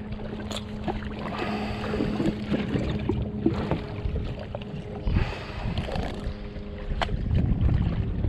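Wind and water sounds around a drifting jet ski, with a steady low hum through the first few seconds and scattered knocks and clatter of things being handled on board.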